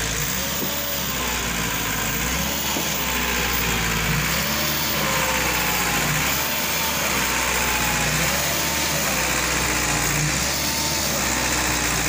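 Tractor diesel engine running steadily close by, its low drone pulsing slowly and evenly.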